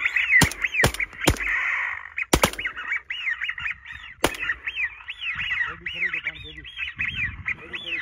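Shotgun blasts at a flock of ducks: five sharp shots in the first four or so seconds, three of them in quick succession near the start. Under and after the shots runs a steady string of rising-and-falling whistled duck calls, and lower calls briefly join in past the middle.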